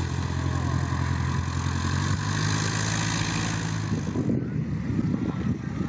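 Small single-engine Cessna's piston engine running at taxi power with its propeller turning, a steady low drone. About four seconds in it gives way to a rougher, uneven rumble as the plane takes off.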